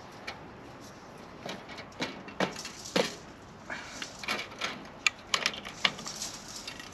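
High-tensile fence wire being handled and twisted by hand: a run of irregular sharp metallic clicks and short scrapes, thickest after about five seconds.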